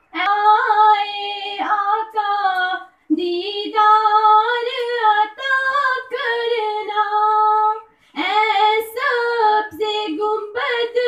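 Two girls singing unaccompanied into a microphone, in long held phrases with short breaks about three and eight seconds in.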